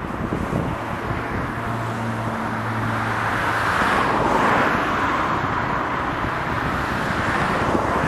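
Road traffic noise: a steady rush of passing vehicles, swelling as a car goes by about four to five seconds in, with a brief low engine hum before it.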